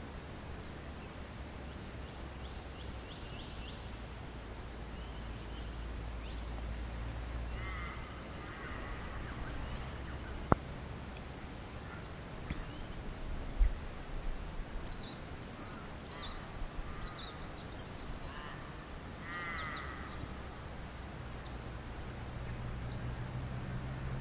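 Birds calling in bushland, with short high chirps throughout and two bouts of harsher, louder calls, about a third of the way in and again near the end. A low steady rumble of wind runs underneath, and there is one sharp click near the middle.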